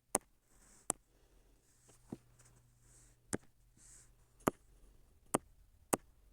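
Computer mouse clicking: about seven sharp single clicks at uneven intervals, over a quiet room.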